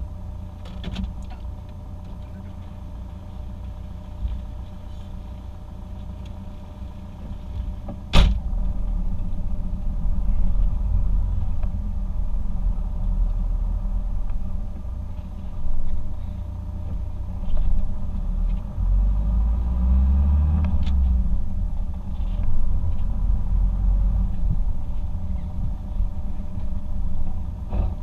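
Car running, heard from inside the cabin: a steady low engine and road rumble. A sharp click about eight seconds in, after which the rumble grows louder as the car moves off and drives slowly on.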